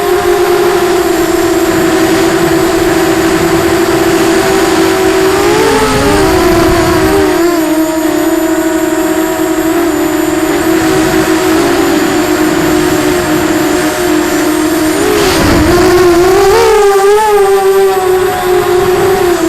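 Eachine Falcon 250 FPV quadcopter's brushless motors and propellers whining at a steady pitch, with brief wobbles in pitch about six seconds in and again near fifteen and seventeen seconds, along with short bursts of low rumble.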